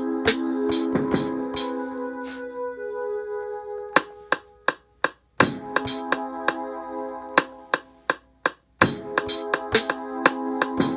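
A beat from an Akai MPC Live's stock sounds plays: held keyboard-style chords under sharp, snappy drum-machine hits in a steady rhythm. The chords cut out twice for about a second, leaving only the clicking hits, then come back.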